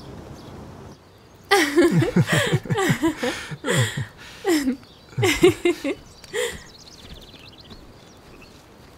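Voices of several people laughing and calling out, starting about a second and a half in and dying away after about five seconds.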